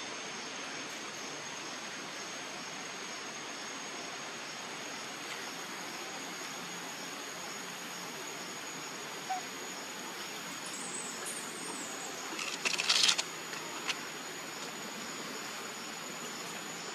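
Steady outdoor hiss with a thin, constant high-pitched whine running through it. A short, loud, harsh burst comes about thirteen seconds in, with a couple of faint clicks around it.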